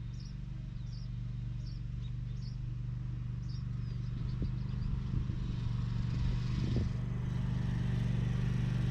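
Zero-turn lawn mower engine running at a steady speed, slowly getting louder, with birds chirping over it in the first few seconds.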